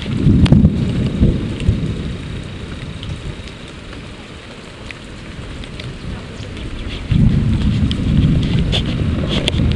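Steady rain falling, with scattered sharp drop clicks. A heavy low rumble sits under it for the first couple of seconds, fades, then comes back suddenly about seven seconds in.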